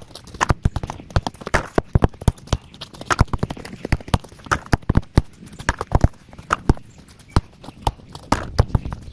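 Basketball being dribbled, a long run of sharp bounces at about three a second.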